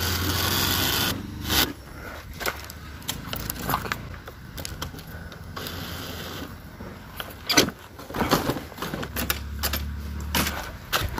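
Yamaha motorcycle's electric starter cranking in two short bursts, one at the start and one near the end, the engine not catching, with clicks from handling the switches and key in between.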